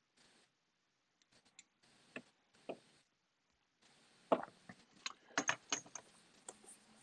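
Faint, scattered clicks and taps of small fly-tying tools and materials being handled at the vise, with a denser run of sharper clicks in the second half.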